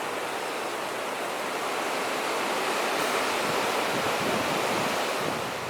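Heavy storm rain pouring down in gale-force wind: a steady rushing hiss that swells slightly midway and cuts off abruptly at the end.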